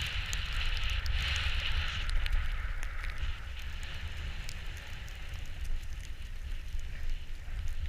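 Wind buffeting the microphone over the steady hiss of sliding downhill on snow. The hiss is loudest in the first three seconds, then eases.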